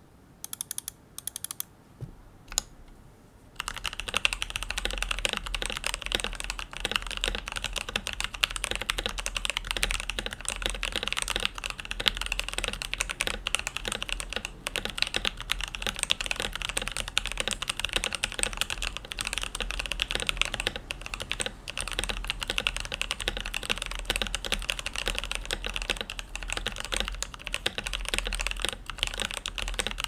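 Keystrokes on a Keychron K6 mechanical keyboard fitted with SP-Star Purple switches lubed with 205g0, with stock stabilizers lubed and tuned. A few separate keystrokes come first, then from about three and a half seconds in, fast continuous typing.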